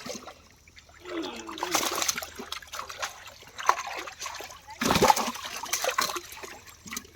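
Pond water splashing and trickling as fish and water are handled, irregular, with a louder splash about five seconds in.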